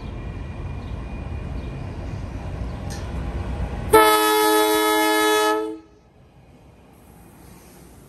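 NJ Transit Arrow III electric multiple-unit railcar moving off and approaching, with a low rumble that builds gradually. About four seconds in, the car sounds one horn blast of nearly two seconds, a multi-note chord that cuts off sharply. A quieter rumble of the passing car follows.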